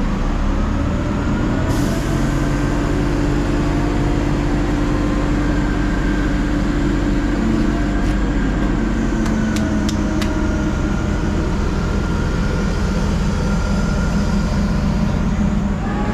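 Liebherr LTM 1350-6.1 mobile crane's diesel engine running steadily under a lift, with a high whine that slowly shifts in pitch. A short hiss of air about two seconds in, and a few sharp clicks near the middle.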